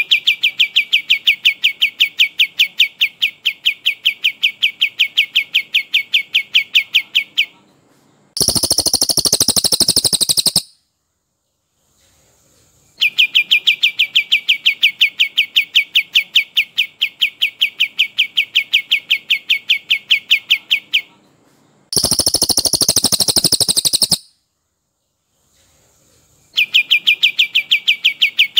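Songbird training recording of a brown cililin and a kapas tembak: a long rolling trill of rapid, evenly repeated notes lasting about seven to eight seconds, broken by a short, denser and higher burst of about two seconds. The cycle comes round three times.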